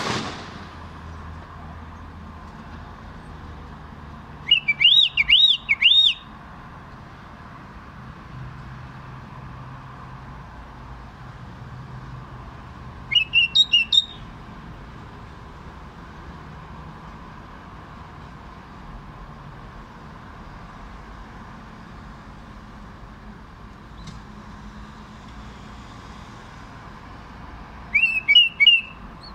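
Caged common bulbul singing three short warbled phrases, each about a second long and several seconds apart, over a faint steady background hum.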